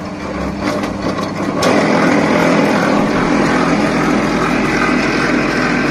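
P15 wire stripping machine running and drawing a coil of scrap wire through it. After a few clicks it comes up to a loud, steady hum about a second and a half in.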